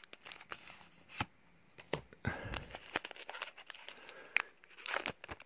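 Foil wrapper of a Pokémon trading card booster pack crinkling and being torn open by hand: faint, scattered sharp crackles, one louder snap about a second in.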